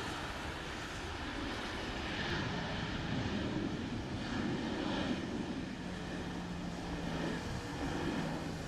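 A Boeing 737-800's CFM56 jet engines running as the airliner rolls out after landing on a wet runway, over a hiss of water spray; the sound swells about two seconds in.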